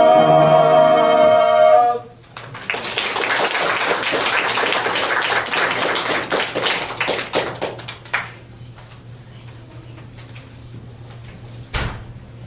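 Two men's voices hold a final note together and cut off about two seconds in. A small audience then claps for about six seconds, dying away, and there is a single thump near the end.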